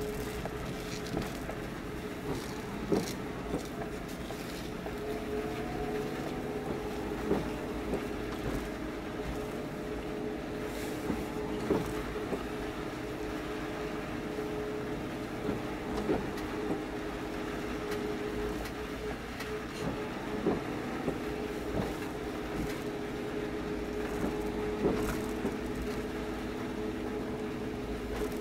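Steady engine hum from moored purse-seine fishing boats, holding several even tones, with a short knock about every four seconds.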